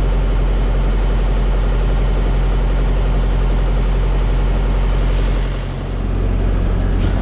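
Semi-truck diesel engine running steadily, with a brief dip in level about five and a half seconds in.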